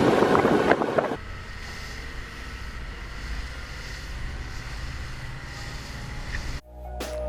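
Wind buffeting the microphone on a moving boat for about a second, then a sudden cut to a quieter steady hiss with a low rumble. Electronic background music starts near the end.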